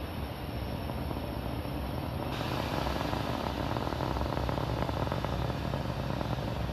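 Falcon 9 first stage's nine Merlin 1D engines during ascent: a steady crackling rumble that grows louder and brighter about two seconds in.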